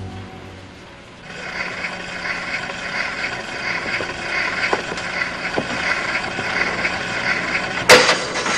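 Hiss and crackle of a phonograph record after its music has ended, the needle still running in the groove. Near the end comes a sharp knock, then a smaller click, as the phonograph is handled.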